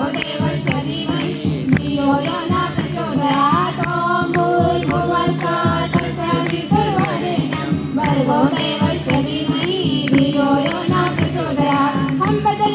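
A group of voices singing a devotional song together over a steady percussion beat, amplified through a sound system.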